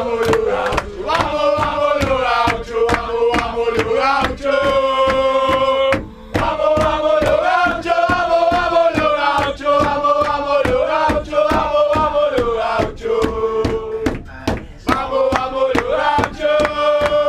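A group of men chanting a football terrace song in unison, with hand claps beating time at about three a second.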